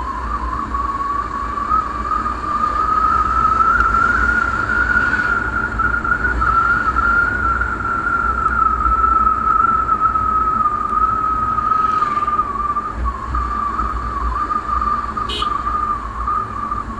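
Bajaj Pulsar UG5 motorcycle riding along a road at roughly 45 to 60 km/h. A high whine climbs over the first few seconds and then slowly drops as the bike slows, over a low wind rumble.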